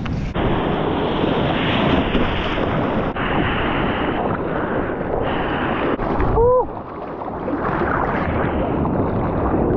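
Wind buffeting the microphone over breaking surf: a loud, steady rushing noise, with a short pitched call about six and a half seconds in.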